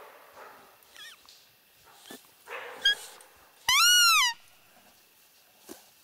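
Roe deer giving a hoarse, dog-like alarm bark about two and a half seconds in. About four seconds in comes a loud high squealing call, rising then falling, about half a second long.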